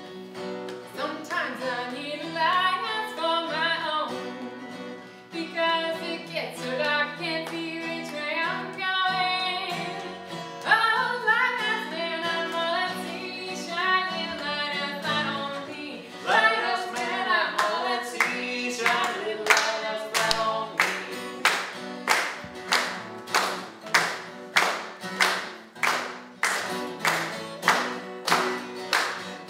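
Strummed acoustic guitar accompanying singing, with no clear words. In the second half, sharp hand claps come in about twice a second and become the loudest sound.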